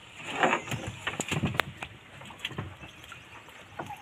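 Wet fishing net being hauled and handled in a wooden outrigger canoe: a rustle of mesh early on, then scattered clicks and knocks against the hull, the sharpest about a second and a half in.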